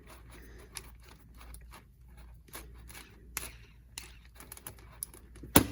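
Chain tool being turned to push a pin out of a 9-speed bicycle chain: faint, irregular metal clicks and scrapes.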